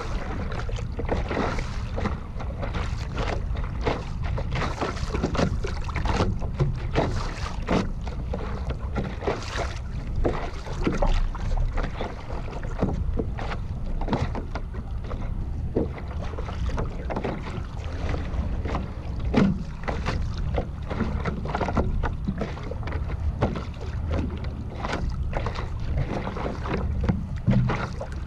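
Water slapping and splashing against the nose of a stand-up paddleboard, heard close up, in many irregular small splashes over a steady rush, with wind buffeting the microphone.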